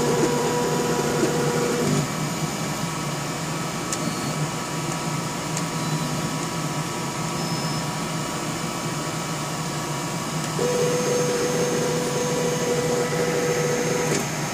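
Stepper motors whining at a steady pitch through two moves. The first move ends about two seconds in; the second starts after about ten and a half seconds and stops just before the end. Under both runs is a steady machine hum.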